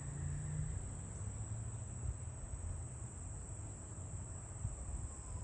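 Outdoor insect chorus, a steady high-pitched trill of crickets, over a low rumble.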